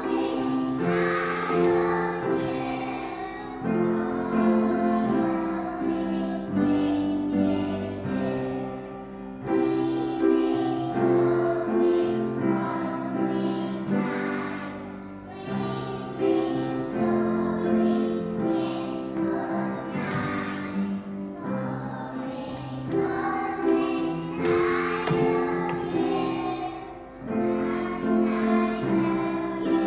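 Young children singing a song together to a musical accompaniment.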